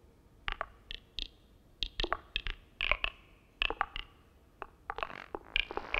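Live electronic concert music from keyboard and electronics: sparse, irregular short clicks and brief pitched pings, about twenty in all, with quiet gaps between them.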